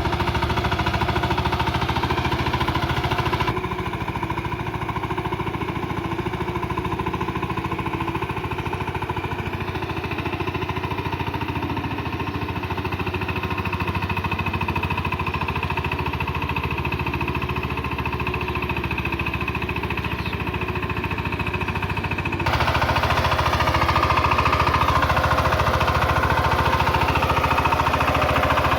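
Single-cylinder diesel engine of a VST Shakti 130 DI power tiller running steadily while cultivating, with a fast even firing beat. Its tone and loudness change abruptly twice, once a few seconds in and again near the end.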